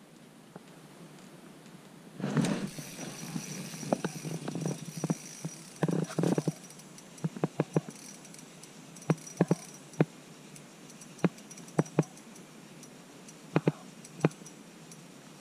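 A crappie flopping on the ice, making irregular sharp slaps and taps, some in quick pairs. These follow a few seconds of rustling handling noise starting about two seconds in.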